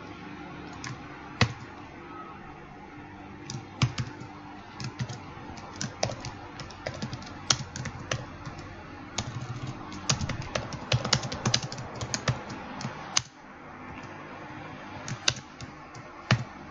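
Typing on a computer keyboard: irregular key clicks in quick runs, busiest through the middle, with a brief pause about two-thirds through, over a steady low hiss.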